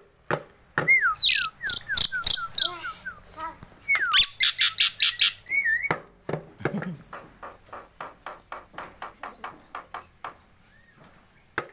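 Javan myna (jalak kebo) calling: loud gliding whistles, squawky notes and a falling run of short whistles, then a fast train of 'tok tok tok' clicks, about five a second, fading toward the end. The clicks are the bird's imitation of a knocking sound.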